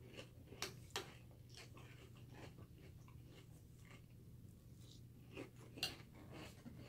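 Faint chewing of a mouthful of milk-soaked Cinnamon Toast Crunch cereal, with a few short sharp clicks about half a second in, about a second in and near the end, over a steady low hum.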